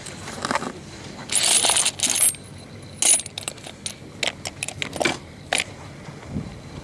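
Small steel tools (lathe tool bits, threading dies and die holders) clinking and jangling against each other as they are handled in a box, with a dense jangle about a second and a half in, then scattered single clicks.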